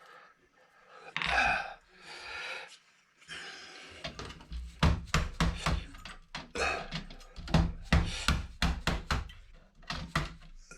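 Hand tool working parts off a computer motherboard: three short scraping rasps, then an irregular run of sharp clicks and knocks as pins and small components are pried and cut loose.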